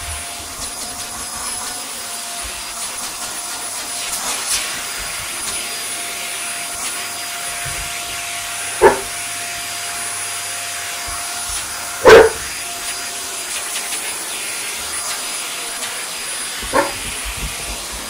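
Upright vacuum cleaner running steadily on carpet with a high motor whine, while a dog barks three times, about 9, 12 and 17 seconds in. The middle bark is the loudest.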